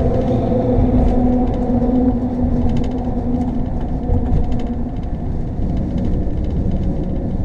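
Inside the cab of an RV crossing a steel grate bridge deck: a steady low rumble with a droning hum from the tyres running on the grating.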